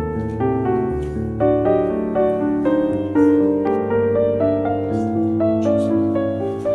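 Background instrumental music: a melody of separate, evenly paced notes over lower held bass notes.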